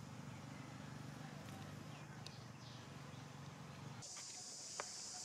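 Outdoor ambience with a low steady hum, changing abruptly about four seconds in to a steady high-pitched drone of insects, with a sharp click shortly after.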